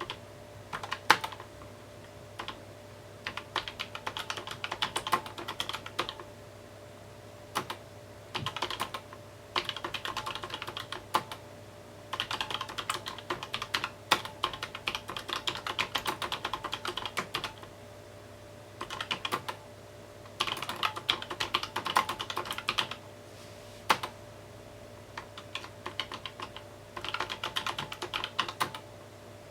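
Typing on a mechanical keyboard: runs of rapid key clicks broken by pauses of a second or two, with a few single louder keystrokes, over a faint steady hum.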